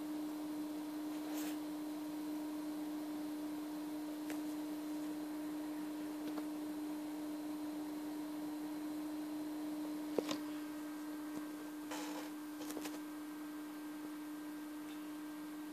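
A steady hum at one pitch, with a few faint clicks and knocks: the sharpest about ten seconds in, then a short cluster of small noises soon after.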